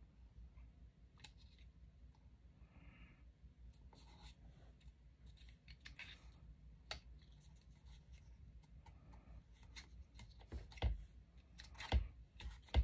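Scissors snipping paper in scattered short cuts, getting louder and closer together near the end.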